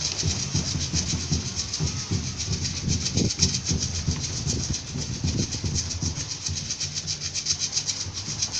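Batucada samba percussion group playing: a fast, even shaker rhythm over low drum beats.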